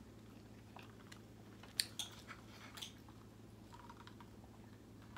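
Quiet mouth sounds of a person eating and sipping from a glass of iced drink, with a few sharp clicks about two seconds in, over a steady low hum.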